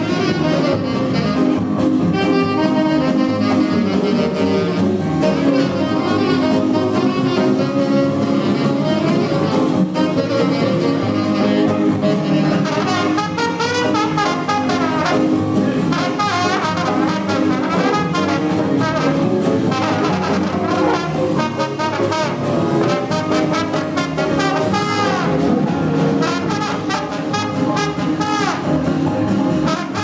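Live small-band swing jazz: a brass horn plays the lead line over piano, upright bass, drums and guitar, with saxophone in the band.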